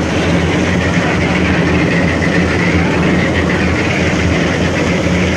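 Engine of a portable drum concrete mixer running steadily under load with a deep, even drone.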